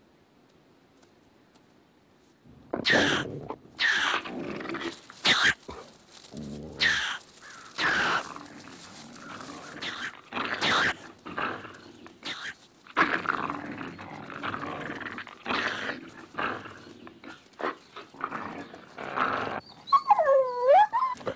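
Coyote and ringtail fighting: a run of harsh snarls and growls, about one a second, starting two and a half seconds in. Near the end comes a high squealing cry that dips in pitch and rises again.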